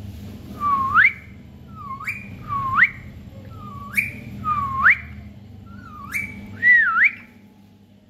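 Rose-ringed parakeet whistling: about seven short whistles, each sweeping quickly upward in pitch, the last one wavering down before it rises.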